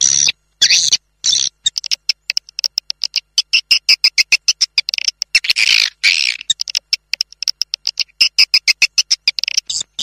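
Swiftlet calls from a swiftlet-farming lure recording: rapid, fast-repeating high chirps and clicks, broken now and then by brief total silences.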